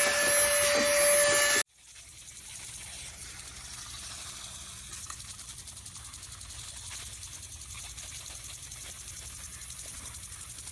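A loud machine runs with a steady whine and stops abruptly under two seconds in. A quieter steady hiss with faint scattered ticks follows.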